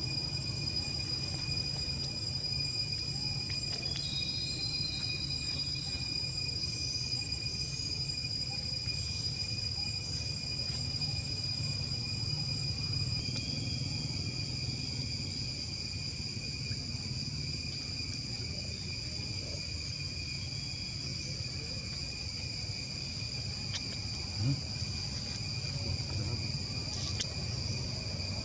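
Steady outdoor chorus of insects, several high-pitched tones held without a break, over a low background rumble. One brief knock sounds near the end.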